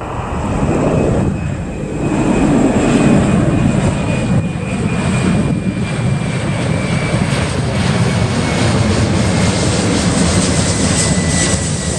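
Twin turbofan engines of a FedEx Boeing 767 freighter at climb-out power just after takeoff: a loud, steady jet roar with a high whine that slowly falls in pitch.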